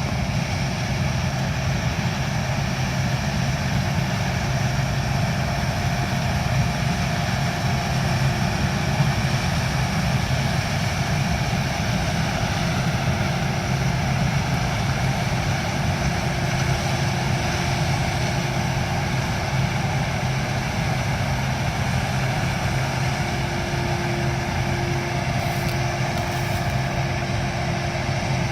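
Corn harvesting machinery running steadily: a continuous engine and machinery drone with a faint steady whine.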